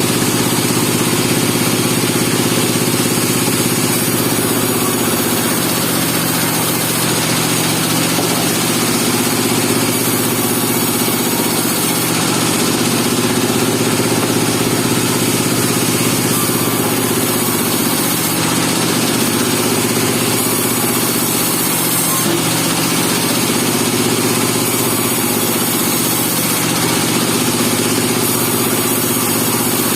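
Engine of a band sawmill running steadily.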